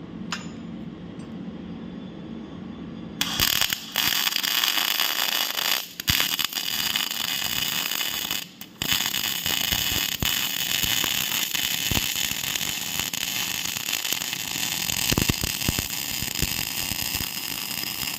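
Electric arc welding: after a low hum, the arc strikes about three seconds in and gives a steady, loud crackling hiss that breaks off briefly twice.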